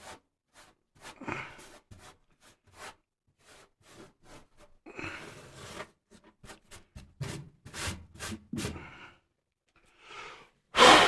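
Hands working on furnace parts: scattered small clicks, taps and rubbing of screws, plugs and metal, uneven in timing, with a longer stretch of rubbing about halfway through. A sudden loud vocal burst right at the end.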